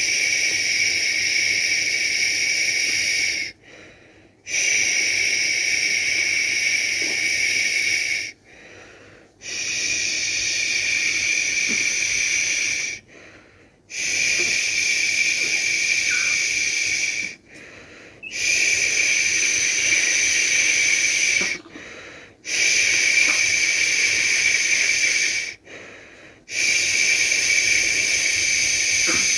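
A person shushing to lull a baby to sleep: long, steady "shhh" sounds of about three to four seconds each, seven in a row with brief pauses between them.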